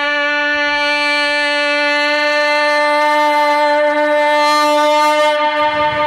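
A man imitating a departing train's horn with his voice through a microphone: one long, steady, horn-like note.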